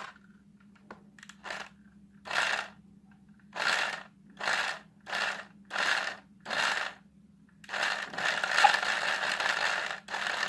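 Electronic toy gun sound effect: six short hissing shots, then a steady hiss.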